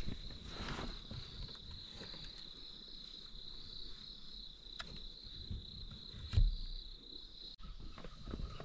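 Night insects chirring in one steady high drone, heard from inside a parked car, with a single thump about six seconds in. The drone cuts off abruptly shortly before the end.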